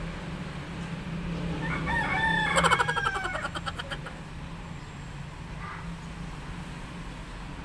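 A rooster crowing once, a rough call of about two seconds starting a couple of seconds in, over a steady low hum.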